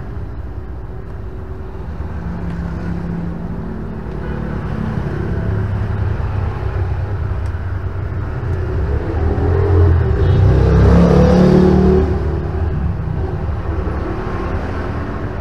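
A motor vehicle's engine running, steadily growing louder to a peak about ten to twelve seconds in, then easing off again.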